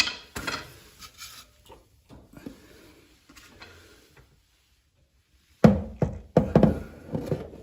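Metal knocks and clatter from tools working on the exhaust under the SUV, tapering into a few small clicks; after a short quiet spell, a man's voice near the end.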